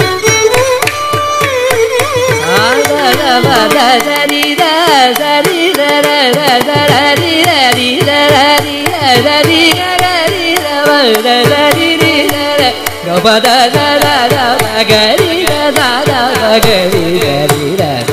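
Carnatic concert music in raga Mohanam on Adi tala: a melodic line full of quick sliding ornaments, over steady drum strokes keeping the rhythm.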